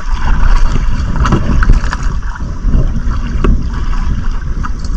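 Wind rumbling on the microphone aboard a small outrigger boat, over water sloshing against the hull, with a few light knocks scattered through.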